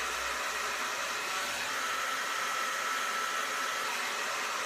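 Handheld hair dryer running on its low setting: a steady rush of air with a faint whine.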